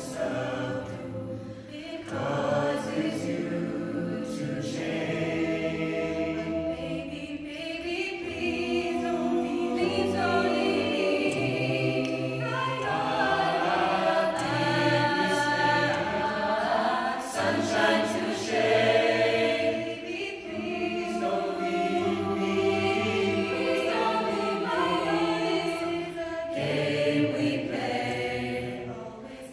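Mixed-voice a cappella group singing, a soloist over the group's sustained backing harmonies and a low bass part. The sound dips briefly about two seconds in and again near the end.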